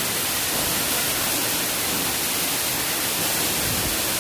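Falling water rushing steadily: a waterfall's even, unbroken hiss.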